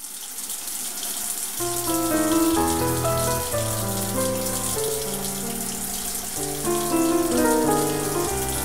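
A steady hiss of rushing water. Instrumental music comes in about a second and a half in, a melody of held notes stepping from one to the next over it.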